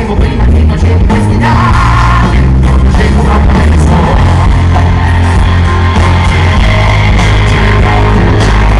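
Live band playing rock music with a singer, loud and steady, with a strong bass, heard from the audience.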